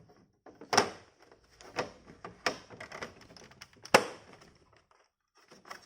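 PlayStation 5 Digital Edition's plastic side cover sliding back onto the console and clicking into its clips: a string of plastic clicks and knocks with scraping between them, the sharpest about a second in and about four seconds in.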